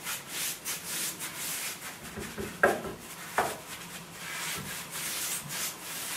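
Paintbrush swishing varnish onto bare pine bed-frame rails in quick, even strokes, about three a second. Two sharp taps stand out about two and a half and three and a half seconds in.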